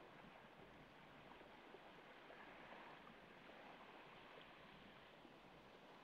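Faint, steady wash of small waves breaking and running up over a pebble beach.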